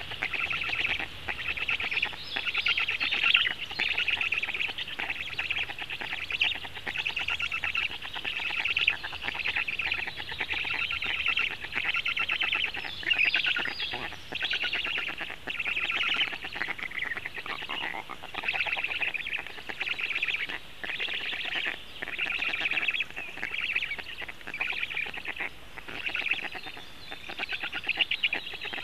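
Black stork chicks calling: raspy, wheezy calls repeated in bursts about once a second, the begging of nestlings with a parent at the nest.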